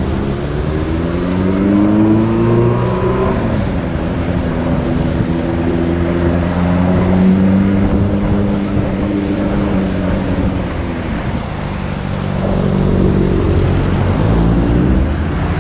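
A motor vehicle's engine accelerating, its pitch rising over the first few seconds and then running steadily, with a second swell near the end, over a constant traffic rumble.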